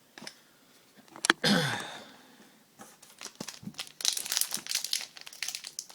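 Hockey card pack wrapper being handled and torn open, crinkling, with a sharp click about a second in and the loudest crinkling from about four seconds in.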